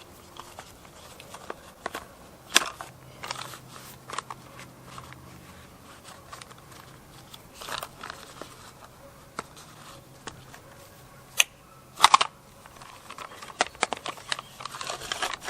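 Scattered light clicks and knocks of a Jonsered 2071 chainsaw's recoil starter being handled, as the starter pulley is given one more turn of spring tension. The loudest knocks come about two and a half seconds in, near eight seconds, and twice around eleven to twelve seconds.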